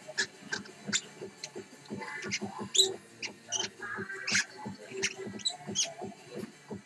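Lovebird chirping and squeaking: short, sharp high-pitched calls coming irregularly, several a second.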